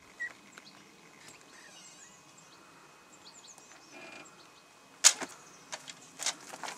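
Camper van side door being opened: a short creak about four seconds in, a sharp knock a second later, then several lighter knocks and footsteps as someone steps down onto a folding step stool. Faint bird chirps in the background.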